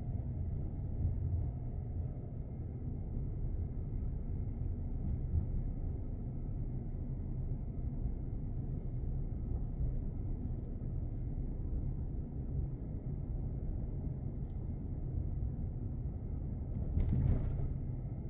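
Car driving slowly on a city street: a steady low rumble of engine and tyres on the road. A brief louder rush comes near the end.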